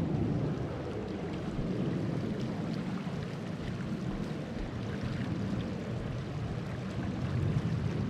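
Steady rushing of river rapids, a low, even roar of water with no break.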